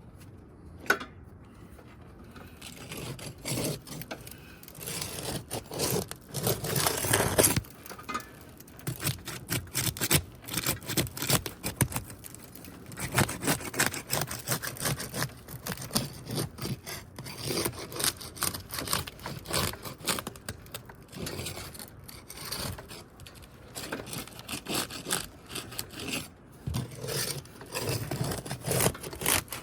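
Sealed asphalt roof shingle tabs being pried up with a tool: irregular bursts of scraping, rubbing and crackling as the adhesive seal breaks. The shingles are old and badly worn.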